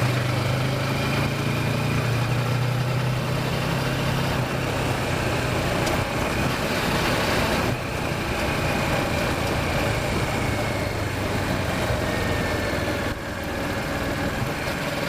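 Kawasaki Versys motorcycle engine running under way, mixed with wind rush on the rider's microphone; the low engine hum is strongest for the first five seconds, then weakens, and the sound eases off slightly about eight and thirteen seconds in.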